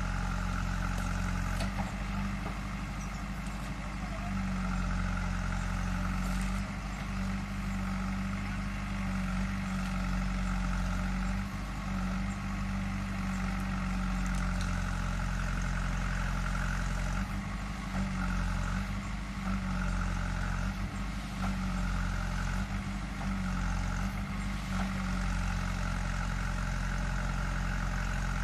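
Diesel engine of a backhoe loader running steadily, its note swelling and easing in stretches as the arm works, with a few faint knocks.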